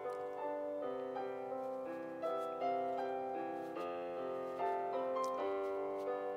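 Background piano music, a melody of notes changing about every half second.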